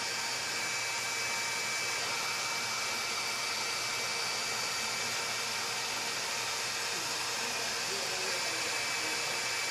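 Fused-filament 3D printer running as it prints a plastic part: a steady whirring hiss from its fans, with faint steady high tones over it.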